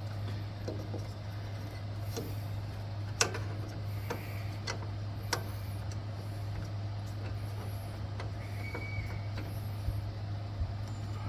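Light metal clicks and clinks, a handful spread out, as a flat idler pulley and its spacer are fitted back onto a lawn tractor's belt drive by hand. A steady low hum runs underneath.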